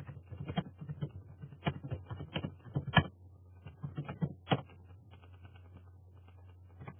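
Computer keyboard typing: irregular keystrokes that stop about two-thirds of the way through, over a low steady hum.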